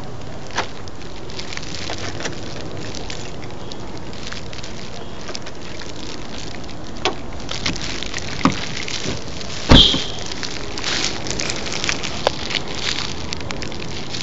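Steady crackling hiss of handling and wind noise on a phone microphone, with scattered clicks and one loud thump about ten seconds in.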